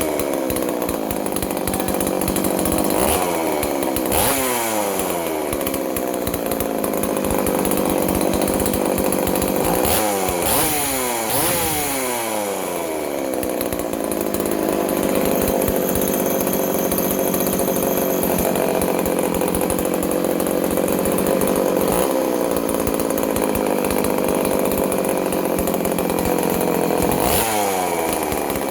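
Vintage Poulan 3400 two-stroke chainsaw, freshly ported, running and revved several times, its pitch falling back to a steady idle after each blip.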